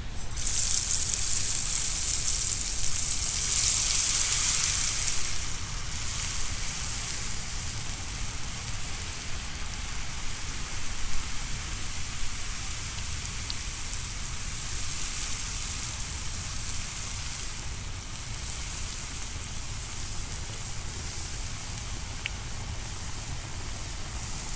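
Funnel cake batter poured slowly into hot oil, sizzling loudly for the first five seconds or so, then settling into a steadier, quieter frying sizzle.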